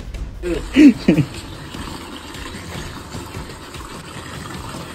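Water from a garden hose pouring steadily into a plastic tub. A voice sounds briefly about a second in.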